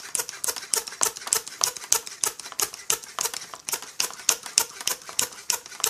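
Rapid, even clicking, about six or seven clicks a second, from the hand pump and hose used to pressure-test a chainsaw fuel tank and its vent.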